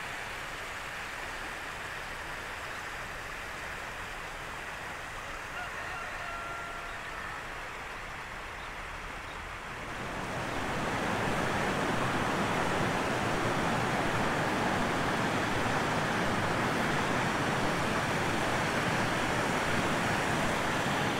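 Steady rushing outdoor noise. About ten seconds in it becomes louder and fuller, with a faint brief tone about six seconds in.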